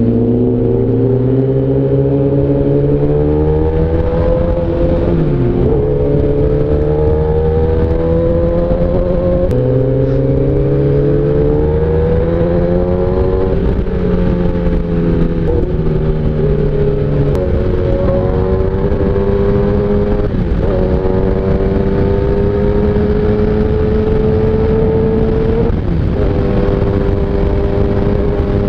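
Kawasaki ZX-10R superbike's inline-four engine heard from the rider's seat, pulling up through the revs. Its pitch climbs slowly and drops back about six times as it shifts up through the gears.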